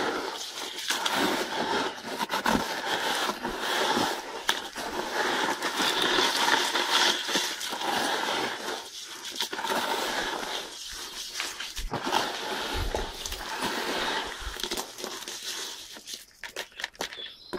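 Hands working a wet, gritty calcium-block mix of crushed eggshell, shell grit and dolomite in a bucket: a continuous crackling scrape full of small clicks that eases off near the end.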